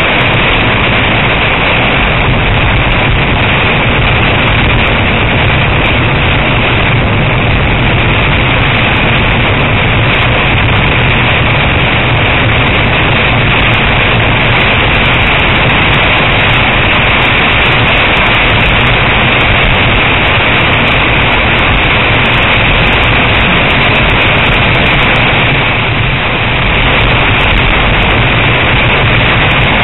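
Torrential rain beating on a moving car with its tyres hissing through standing water, heard from inside the cabin: a loud, steady rushing noise that dips briefly once near the end.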